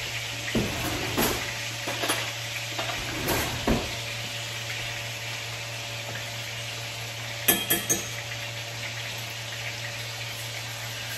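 Steak sizzling in a hot frying pan, a steady hiss over a low steady hum. Several knocks and scrapes come in the first few seconds, and three quick sharp clicks come about seven and a half seconds in.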